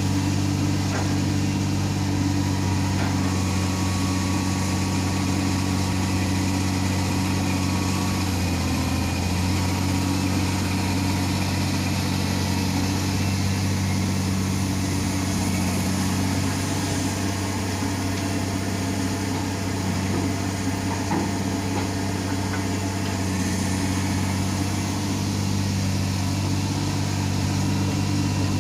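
Komatsu excavator's diesel engine running steadily at a constant speed, a deep even drone.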